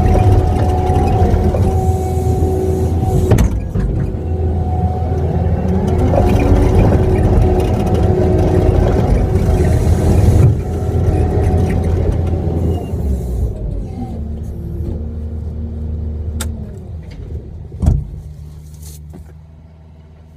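Kubota skid steer's diesel engine running steadily with whining tones above it, growing quieter over the last several seconds, with one sharp knock near the end.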